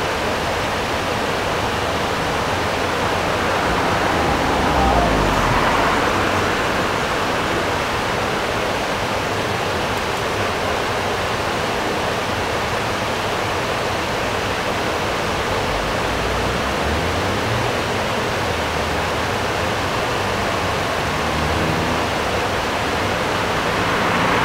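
Water rushing steadily over a sloping stone weir: a constant, even hiss.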